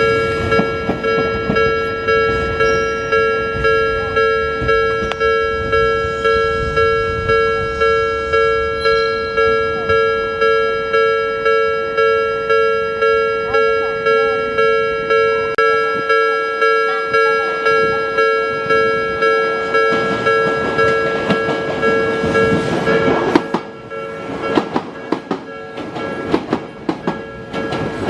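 Railway level-crossing alarm ringing its electronic bell about twice a second over the rumble of a train; the bell stops about four-fifths of the way through. After it stops, train wheels clack irregularly over rail joints.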